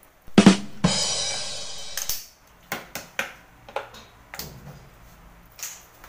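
Handling a metal pot of flushing water on a tiled floor: a loud knock, then about a second of rushing noise, then scattered light knocks and clatter.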